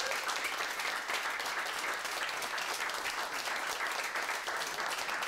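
Small audience applauding steadily, many hands clapping.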